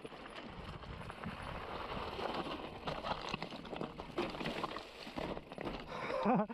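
Mountain bike riding down a rough dirt and rock trail: tyres rumbling over the ground with constant small knocks and rattles from the bike, and wind noise. A short pitched sound near the end.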